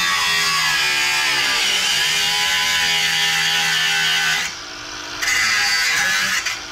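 Cordless angle grinder cutting through metal mounting brackets, a loud grinding hiss with the motor's pitch wavering under load. The cut breaks off for under a second about four and a half seconds in, and briefly again near the end.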